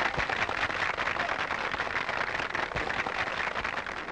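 Crowd applauding, the clapping slowly dying away.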